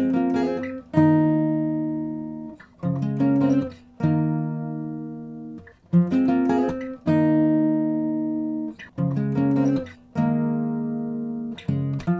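Background music on acoustic guitar: chords are struck and left to ring and fade, repeating in a slow, even pattern.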